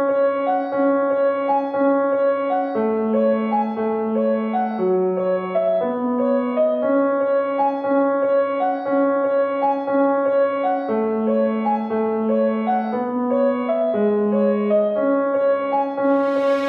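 Background music: a soft piano-like keyboard tune, with notes changing every second or two over a steady repeating pulse.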